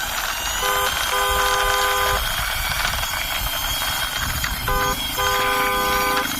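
Two-tone car horn sounding twice in the same pattern, a short toot then a longer blast, over a steady rumbling noise as a toy car is driven along by hand.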